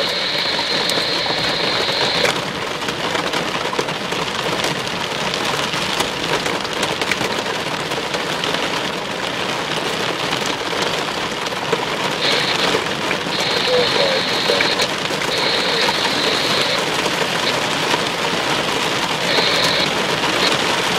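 Heavy rain drumming on a car's roof and windshield, heard from inside the car: a dense, steady patter of drops with many sharp individual hits. A high steady tone comes and goes a few times.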